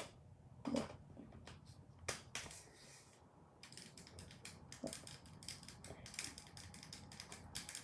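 Planet Eclipse Emek paintball marker being handled: a few knocks as the body is fitted on, then about halfway through a run of quick light clicks, several a second, as the lightened trigger is pulled over and over.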